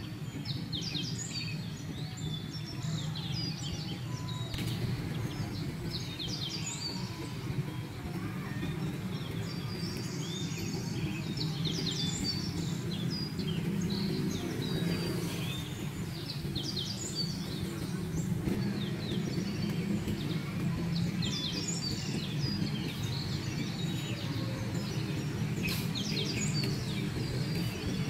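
Small birds chirping, with many short, high calls repeating over a steady low background hum.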